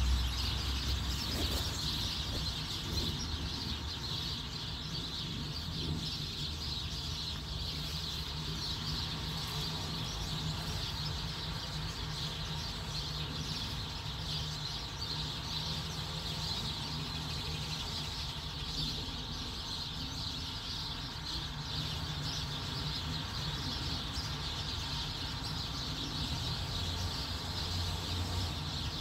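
Steady background ambience: birds chirping over a low, steady hum.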